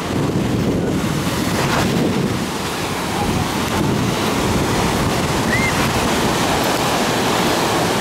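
Sea surf breaking and washing up over a gravelly shore, a steady loud rush, with wind rumbling on the microphone.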